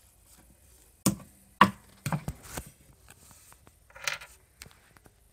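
Handling noise: a few sharp knocks and taps as plastic toy figures are moved about on a wooden tabletop and the recording phone is handled, then a brief rustle about four seconds in.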